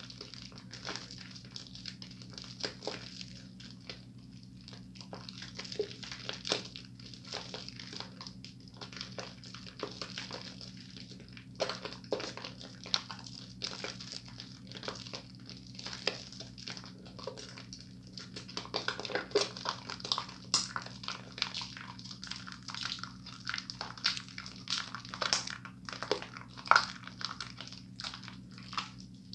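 Thick soap lather squishing and crackling as wet hands rub and squeeze it, denser and louder in the second half. A steady low hum runs underneath.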